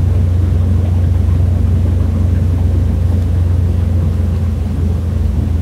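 Mercury 150 Pro XS outboard motor running steadily at reduced throttle, a constant low drone, as the boat sits at about 30 km/h on the edge of dropping off the plane.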